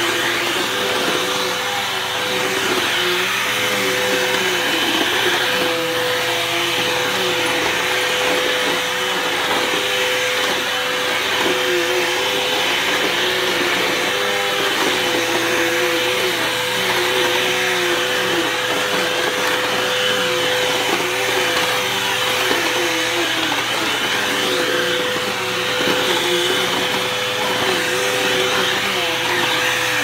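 Bissell CleanView II bagless upright vacuum cleaner running steadily while pushed over a tile floor: a constant motor whine with a lower hum that wavers slightly in pitch.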